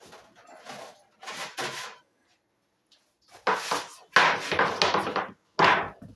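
Metal baking pan clattering as a batch of homemade dog treats is taken out of the oven: a few soft knocks first, then louder clanks and scrapes in the second half.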